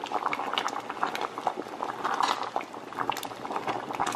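Creamy chicken soup bubbling in a pot on the stove, with many small irregular pops.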